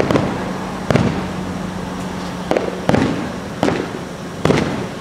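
Aerial firework shells bursting in the display's finale: about six sharp booms in quick, uneven succession, each trailing off in an echo, over a steady low hum.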